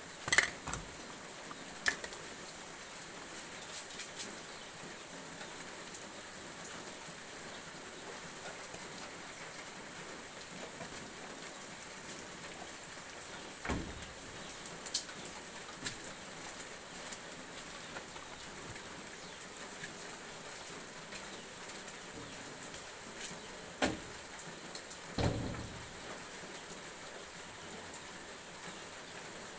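A steady hiss with a handful of sharp knocks and clatters of kitchen things being handled. The loudest come in the first two seconds, with a few more in the second half.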